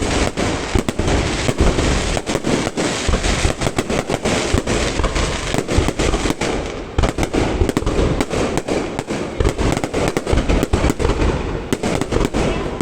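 Fireworks going off in a dense, continuous barrage of rapid bangs, easing briefly about seven seconds in.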